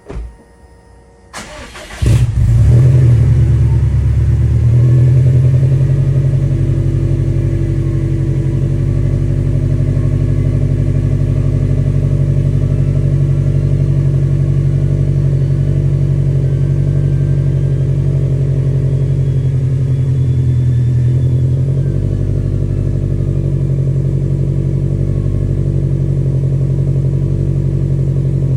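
Subaru WRX STI's turbocharged flat-four engine cranking briefly and catching about two seconds in, flaring up and then settling into a steady idle.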